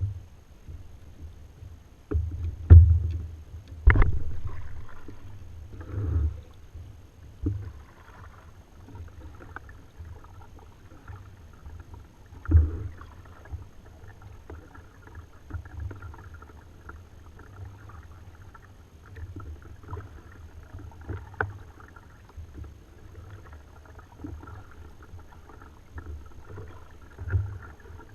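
Ocean Kayak Trident 13 sit-on-top kayak on the water: a steady low rumble with occasional sharp knocks. The loudest knocks come about three and four seconds in, and another about twelve seconds in.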